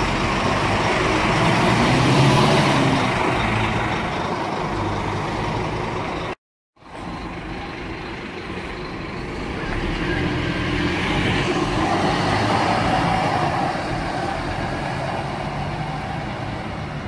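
A large diesel bus engine pulling away and passing, rising in pitch as it accelerates. After a brief gap about six seconds in, another bus passes with its engine rising again.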